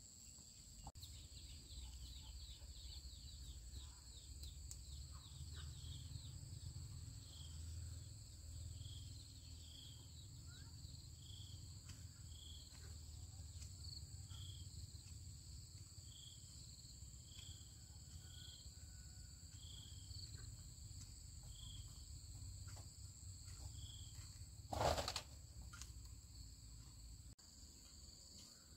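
Outdoor rural ambience dominated by a steady high-pitched drone of insects, with a short chirp repeating about once a second through the middle and a low rumble of wind on the microphone. A single sharp thump about 25 seconds in is the loudest sound.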